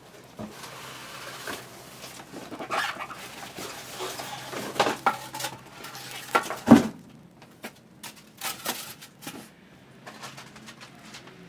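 Packaging and boxed grill parts being handled during unboxing: rustling with scattered knocks and clatter of metal parts, the loudest a single thump about two-thirds of the way through.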